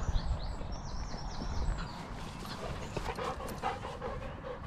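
Two dogs playing on grass, one panting, with a steady low wind rumble on the microphone.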